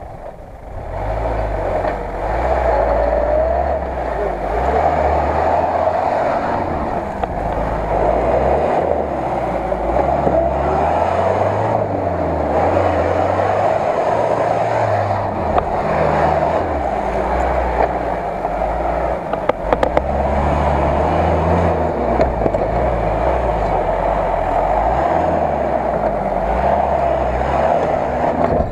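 Engine of a lifted Lada Niva (VAZ 2121) off-roader revving under load through deep mud, its pitch rising and falling again and again.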